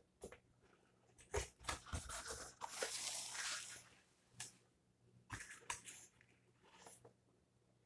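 Cardboard pizza box being opened by hand. There are a few light knocks and taps, and a scraping rustle of the cardboard lid about two to four seconds in, followed by more light thumps as the lid is pushed back.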